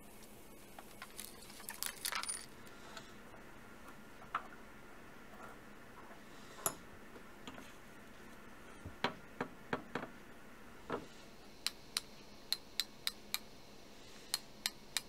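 Scattered light clicks and knocks of an axe handle and wedges being handled on a wooden workbench, then, in the last few seconds, a run of sharp knocks about two a second as the axe head is driven onto its new wooden handle.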